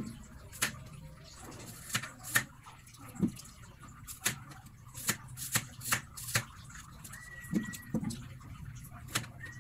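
Chef's knife slicing kamias (bilimbi) on a plastic cutting board: about a dozen sharp, irregular taps of the blade cutting through the small fruit onto the board.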